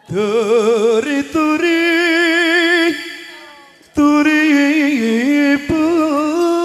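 A single voice singing a sholawat (Islamic devotional song) unaccompanied, holding long ornamented notes with wide vibrato. Two phrases, with a short pause about three seconds in.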